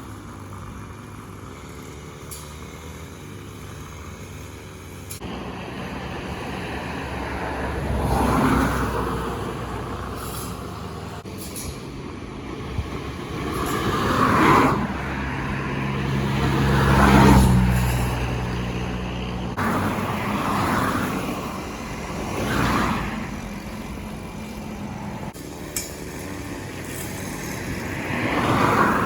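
Road traffic: vehicles passing one after another, each rising and fading, with a heavier vehicle's engine hum most prominent around the middle.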